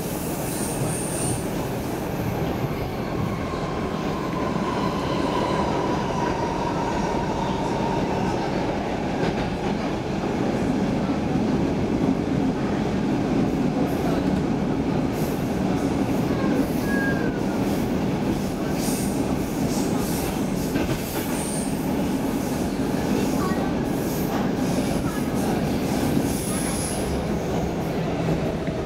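Stockholm Metro C6 subway train running through a tunnel, heard from inside the car: a steady rumble of wheels on rail, with a faint wheel squeal that slowly falls in pitch over the first several seconds and scattered clicks from the track in the second half.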